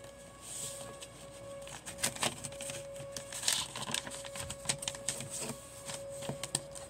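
Sheet of origami paper being folded and creased by hand: irregular crinkles and sharp crackles of the paper, with a few louder snaps scattered through.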